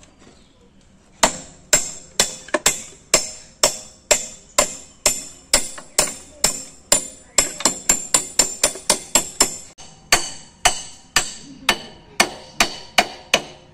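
Repeated hammer blows on metal at a motorcycle's rear wheel hub, each with a short metallic ring. About two a second, quickening for a few seconds midway, with a brief pause before the last few blows.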